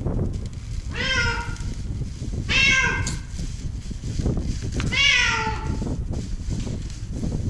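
An adult cat trapped at the bottom of a deep light well, meowing three times about two seconds apart; each meow dips and then rises in pitch. A steady low rumble runs underneath.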